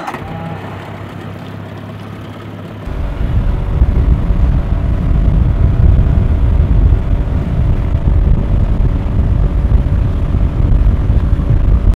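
Mercury 25 hp outboard motor running steadily on a small aluminium boat; about three seconds in the sound steps up much louder, with a heavy low rumble as the boat runs under way.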